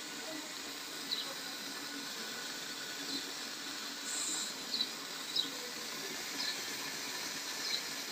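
Soft steady sizzling of melted fat bubbling in mushroom caps on the hot iron top of a dung-fired stove, with faint short high chirps every second or so.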